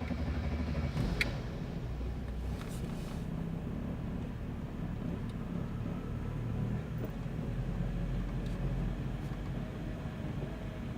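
Mercedes G 300 engine idling with an uneven low rumble: a rough idle.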